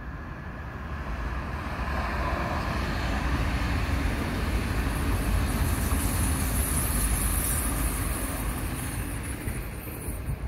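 A train passing on the line: a low rumble and rail noise swell over the first two seconds, peak in the middle with a high hiss, then ease off near the end.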